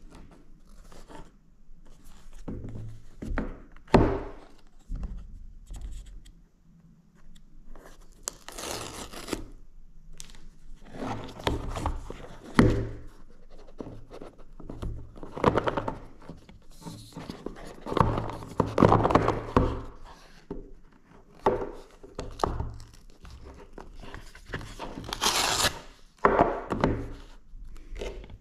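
Hands unboxing a new iPhone 15: the paper seal strips ripping off the cardboard box, then the lid sliding off, with the box knocking and scraping on a wooden table. The sound is a string of separate rips, rustles and thumps, the sharpest a knock about four seconds in.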